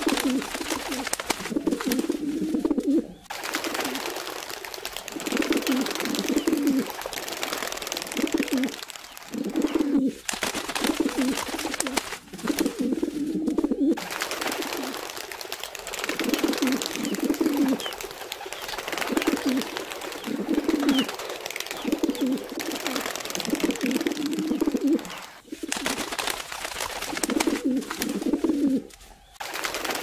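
Pigeons cooing, low coos repeating every second or so over a steady hiss of background noise, breaking off abruptly a few times.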